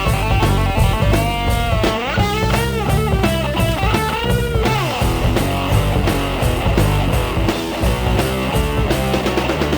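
Rock background music led by guitar, with gliding notes through the middle.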